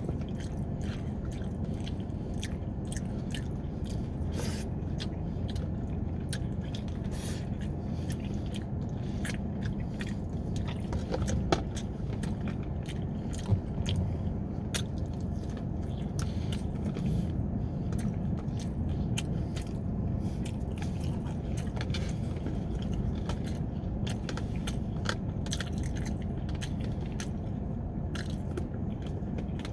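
A person chewing and biting food close to the microphone: a constant run of small wet clicks and crunches over a steady low background noise, with two louder sharp knocks about 11 and 13 seconds in.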